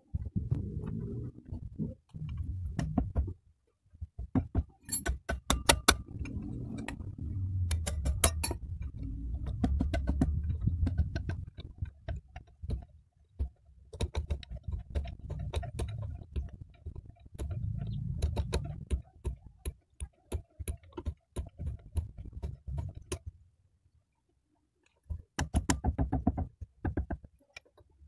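A steel spanner clinks and clicks against nuts and metal parts as it works on the cylinder head of a Yanmar B9 diesel engine. The clinks come in irregular runs over a low rumble, with two short pauses.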